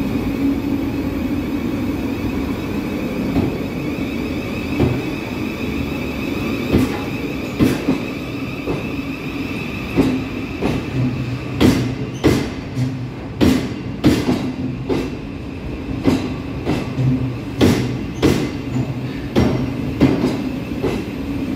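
Great Northern Class 717 Siemens Desiro City electric multiple unit pulling out of an underground platform, with a steady high whine and hum. From about seven seconds in, its wheels clack over rail joints, often in pairs, every half-second to a second as it gathers speed.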